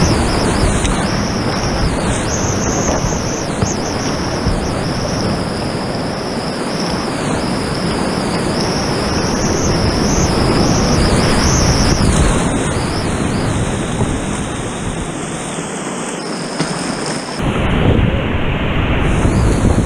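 Whitewater creek rapids rushing close to the microphone of a camera on a kayak: a steady, loud roar of churning water. It grows louder about 17 seconds in as the kayak drops into big foaming waves.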